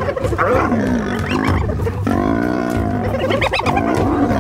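Lions growling and snarling while attacking prey, a run of short rough calls, with one longer call about two seconds in that rises and then falls.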